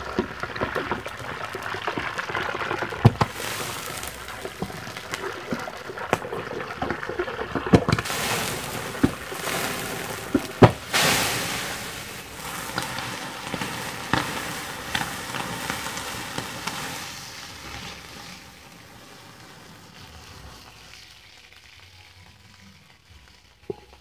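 Hot cooking oil in a pot over an open fire sizzling and spattering with many sharp pops as the water in the dropped-in ice cream boils off in it. The loudest burst comes about eleven seconds in, and the sizzle then fades away over the last few seconds.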